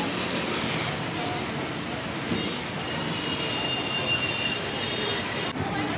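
Steady noisy din of a busy street-food area, with a thin high whine or squeal coming in about two seconds in and fading out near the end.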